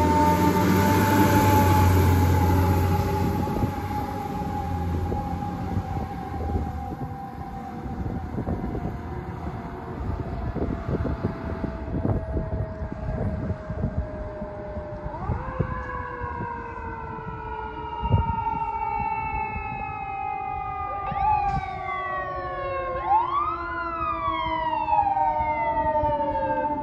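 Fire engine sirens: a long siren tone slowly falling in pitch over a truck engine's low rumble at first, then about halfway through a second siren starts with a rising wail and, near the end, quicker rising and falling sweeps.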